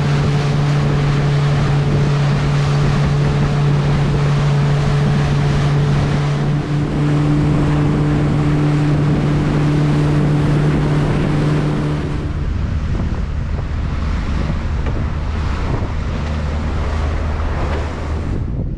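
A boat's motor running steadily under way, with wind and water rushing past; about two-thirds of the way through the engine note drops to a lower, quieter hum as the boat slows.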